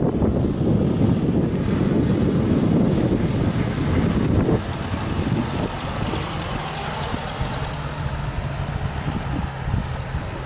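Piston engine and propeller of a Cessna 152-type single-engine trainer passing low overhead and flying away, a drone that bends in pitch and fades. Heavy wind rumble on the microphone covers the first half.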